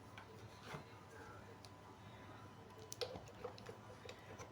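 Faint scattered clicks and light handling noise of a pin plug and its wire being fitted and connected, over a faint steady hum.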